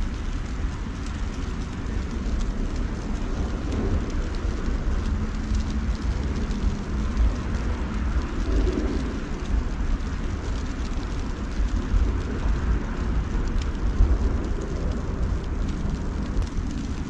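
Steady outdoor noise: a continuous low rumble under an even hiss, with faint ticks scattered through it.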